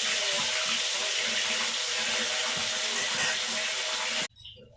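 Water running steadily from a tap, cutting off abruptly near the end.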